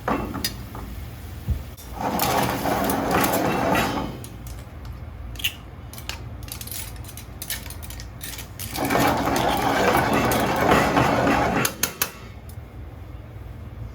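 Kitchen work: metal utensils clinking against pots and pans, with two spells of rushing noise lasting a few seconds each.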